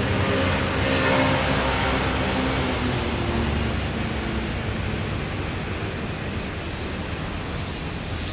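Steady hiss of background noise, with a faint low hum that fades out a few seconds in.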